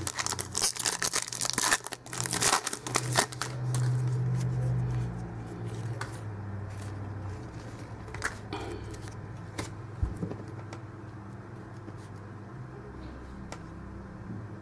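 Foil trading-card pack wrapper crinkling and tearing as it is opened, dense for the first few seconds, then quieter card handling with a few scattered clicks. A low hum comes in for a few seconds in the middle.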